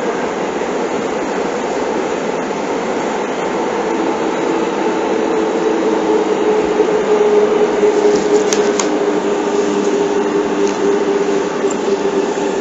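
Seibu 6000 series electric train running through a subway tunnel, heard from inside the car as a steady rumble and hiss. From about five seconds in, a motor whine comes in and slowly falls in pitch.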